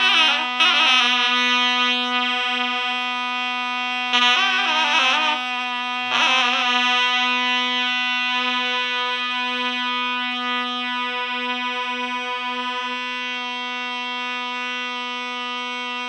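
Two zurnas playing a bozlak: a kaba zurna plays loud, ornamented melodic runs over a steady drone held by the second zurna. In the second half the melody settles into long held notes over the drone.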